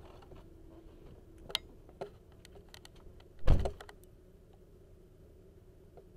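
Clicks of a car door being opened, then the driver's door of a Chevrolet shut with one heavy thud about three and a half seconds in.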